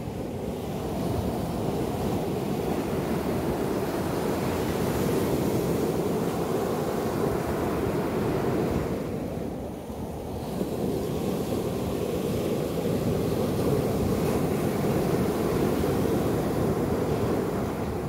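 Small sea waves breaking and washing up a sandy shore, a continuous surf wash that eases briefly about halfway through before swelling again.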